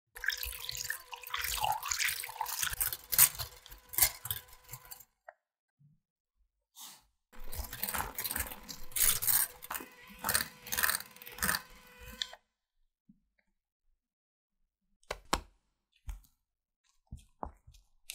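Electric whisk beating egg whites in a glass bowl: a steady motor hum under the wire whisk's rattling, splashing clatter, in two runs of about five seconds with a short pause between. A few faint knocks near the end.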